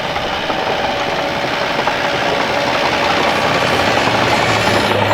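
An engine running steadily, its pitch wavering and growing slowly louder, with music coming in near the end.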